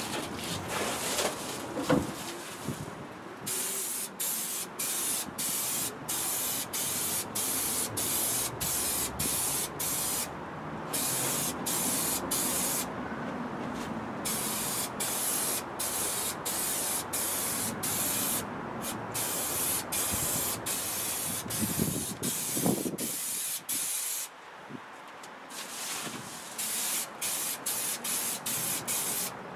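Aerosol spray adhesive hissing in long bursts, each broken off briefly and resumed many times. Twice there is louder rustling from a foil bubble-insulation sheet being handled.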